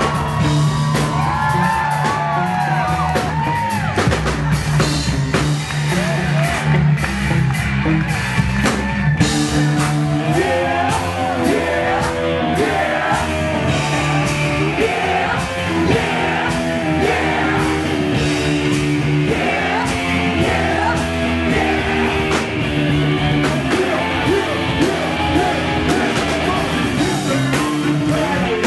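Live funk and hip-hop band playing loudly through a club PA: a steady bass line, drums and electric guitar, with vocals over them.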